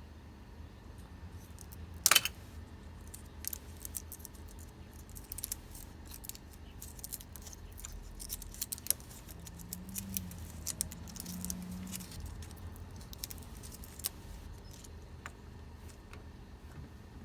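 Scattered small metallic clicks and clinks from hand tools and terminal hardware being worked on a car battery terminal, with one sharp, louder click about two seconds in and a low steady hum underneath.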